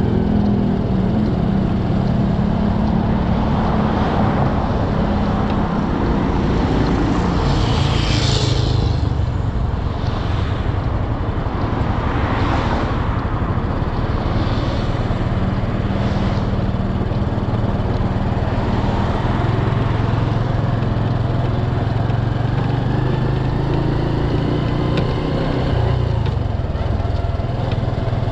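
Motorcycle engine running steadily while riding through city traffic, with wind noise on the microphone. A few brief rushes of noise swell and fade, about 8, 12 and 16 seconds in.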